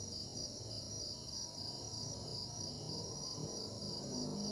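Crickets chirping in a steady, evenly pulsing high-pitched trill, over a faint low background rumble.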